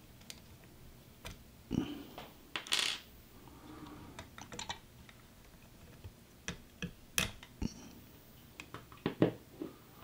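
Irregular small metal clicks and clinks, with a few louder short knocks, from pliers and hands working on a circuit board inside a metal speaker chassis.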